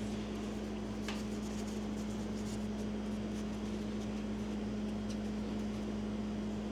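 Steady motor hum holding one low pitch, with a few faint small ticks and rubbing sounds over it.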